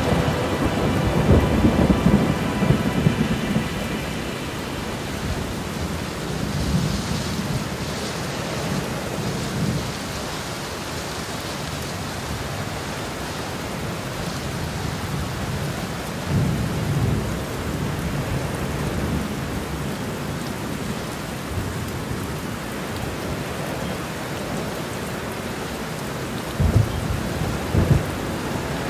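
Steady rain with low rolls of thunder now and then.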